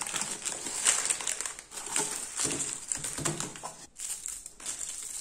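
Small plastic bags of accessories crinkling and rustling as hands pull them out of a cardboard sleeve and spread them out, with the cardboard scraping, in irregular handling noises.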